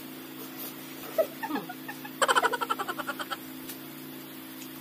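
A high-pitched giggle: a quick run of about a dozen short pulses lasting about a second, coming after a brief falling vocal sound. A steady low hum runs underneath.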